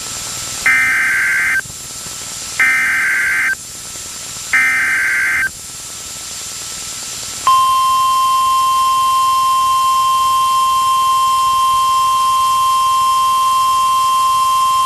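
Emergency Alert System data and alarm from a NOAA Weather Radio broadcast. First come three SAME header bursts of screechy digital data, each about a second long and a second apart. Then, from about seven and a half seconds in, the steady 1050 Hz warning alarm tone holds, signalling that a warning is about to be read.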